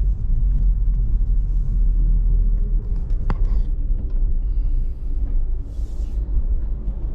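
Low, steady rumble of a Honda Civic Type R (FL5) with its 2.0-litre turbocharged four-cylinder running, heard from inside the cabin while the car creeps into a parking spot, with a single sharp click about three seconds in.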